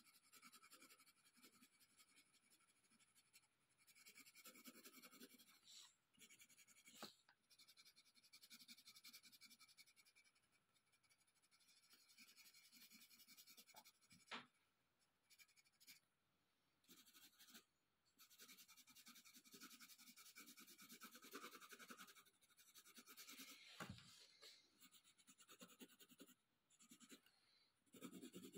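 Colored pencil scratching faintly on paper in stretches of short shading strokes, with a few brief clicks of the pencil or hand on the table.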